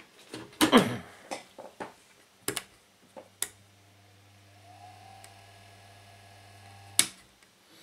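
Handling knocks on the bare fan motor and its base, then a click as the 1970s AEPI fan's electric motor is switched on. It hums steadily and low for about three and a half seconds, its motor still a bit stiff and unoiled, until another sharp click cuts it off.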